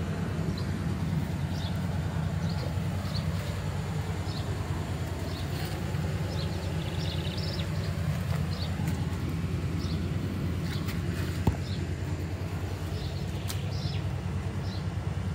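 Outdoor ambience: a steady low rumble under scattered short, high chirps of small birds, with a single sharp tap about eleven seconds in.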